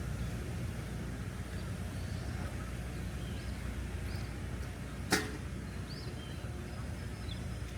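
Outdoor background: a steady low rumble, with faint, scattered bird chirps and a single sharp knock about five seconds in.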